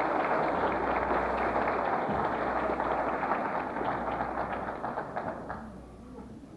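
Crowd applauding, dying away about five and a half seconds in.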